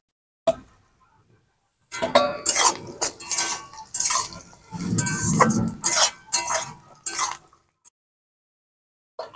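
Spatula clinking and scraping against a kadai while stirring onions in hot oil: a dense run of quick knocks with a metallic ring for about five seconds, with single clinks near the start and near the end.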